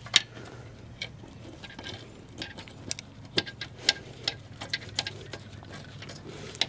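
Irregular light metallic clicks and taps as the upper mounting bolts of a semi truck's suspension air bag are lined up and started by hand, over a low steady hum.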